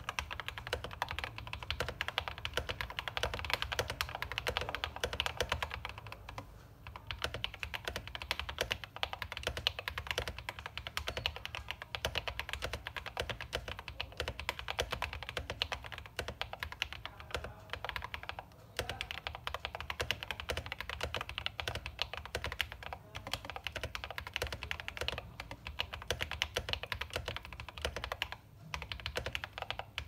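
Continuous typing on a Tester 68 custom mechanical keyboard with lubed Porcelain Blue switches, case foam, PE foam and tape mod, and Geekark BOW keycaps: a dense run of keystroke clacks broken by a few brief pauses.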